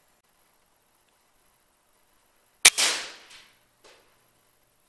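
A single sharp shot from a PCP air rifle about two and a half seconds in, with a short fading tail, then a much fainter knock about a second later.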